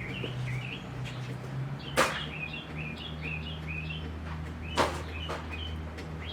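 A small bird chirping over and over in the background, with two sharp knocks, about two seconds in and near five seconds, over a steady low hum.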